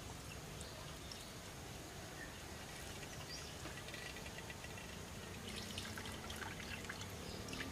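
Coconut milk poured in a thin stream from a clay bowl into a clay pot of rice and mung beans: a faint trickle with small splashes and drips as the milk hits the rising liquid.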